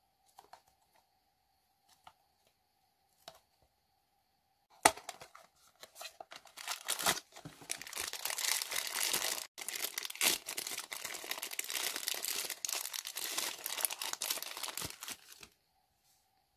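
Thin plastic blind-bag wrapper torn open and crumpled by hand: a dense crinkling that starts about six seconds in and goes on for about nine seconds. It is preceded by a few faint taps and a sharp click about five seconds in.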